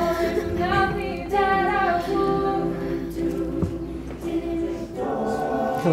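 Vocal music: several voices singing, a cappella or choir-like, with held notes that slide between pitches.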